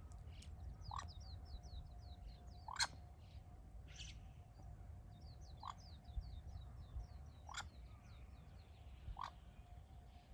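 A short low call repeated five times, about every two seconds, the loudest about three seconds in. Over it, small birds give runs of rapid, high, falling chirps.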